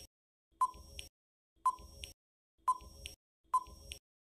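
Countdown timer sound effect ticking: a short, sharp beep-like tick followed by a fainter click, repeating about once a second, four times.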